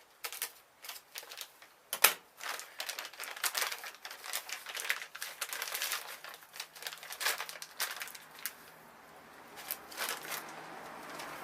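Packaging around a new camshaft being cut and torn open and unwrapped: irregular crinkling and rustling, with a sharp snap about two seconds in.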